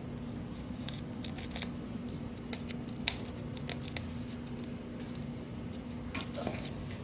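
Small crisp clicks and crinkles of cardstock and foam adhesive dimensionals being handled and pressed in place, scattered irregularly over a faint steady hum.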